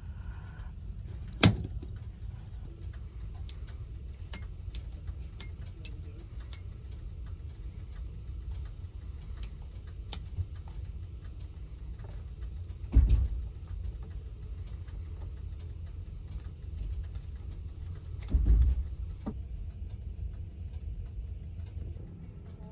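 Steady low rumble of a sleeper-train cabin, with scattered small clicks and three louder knocks spread through, as the cabin's fittings and controls are handled.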